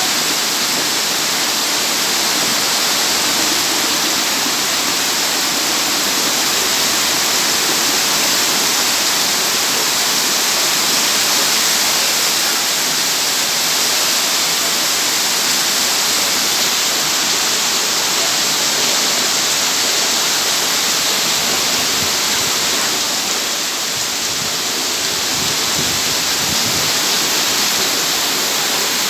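Heavy rain pouring down steadily during a big storm, a constant loud rush that eases slightly for a moment about three-quarters of the way through.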